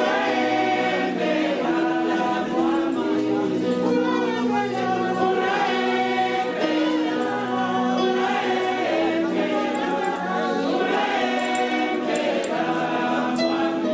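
A choir singing in several parts, with long held notes.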